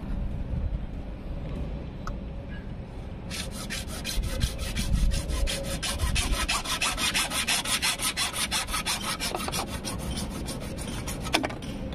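A bare hacksaw blade held in the hand sawing through a plastic water pipe in quick, even back-and-forth strokes, starting about three seconds in and stopping near the end. A single sharp click follows shortly before the end.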